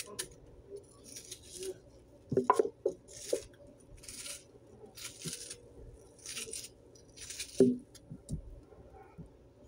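Knife slicing through a raw onion held in the hand: about six short, crisp rasping cuts roughly a second apart, with a couple of louder knocks.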